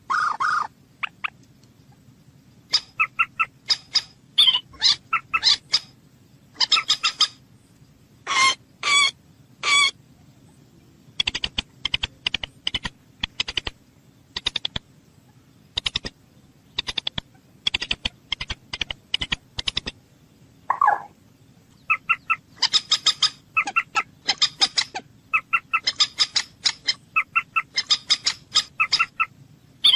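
A bird calling over and over in short sharp notes, grouped into quick series, with a run of rapid clicking notes about halfway through and a few longer notes early on.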